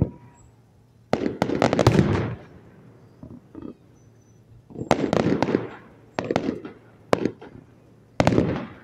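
Fireworks going off in a show: rapid clusters of crackling bangs about a second in and again around five seconds, then a few single bangs and another burst of crackles near the end.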